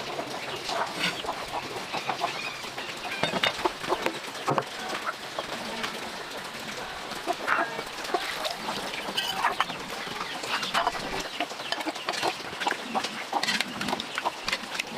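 Chickens clucking with short, irregular calls.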